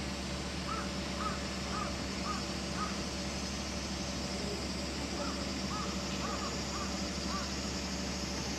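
A crow cawing in two quick runs of about five short caws each, the second run a few seconds after the first, over a steady low hum.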